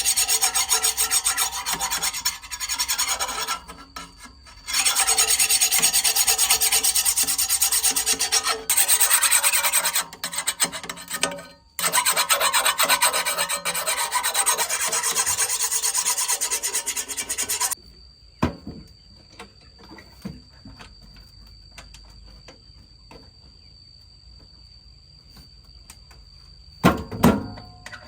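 Harsh rasping and shredding, as of plant material being shredded for chicken feed, in long loud stretches with two short breaks. It stops about 18 s in, leaving a faint steady high whine, a few clicks and a knock near the end.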